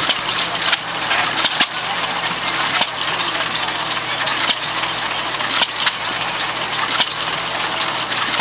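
Sandwich 6 hp single-cylinder hit-and-miss engine running, firing with sharp pops at uneven gaps of about a second to a second and a half, coasting between the firing strokes.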